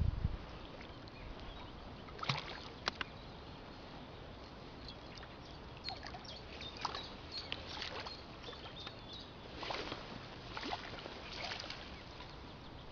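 A hooked bream splashing and sloshing in the shallows as it is played in and scooped into a landing net: short splashes, two about two seconds in, then a run of them through the second half.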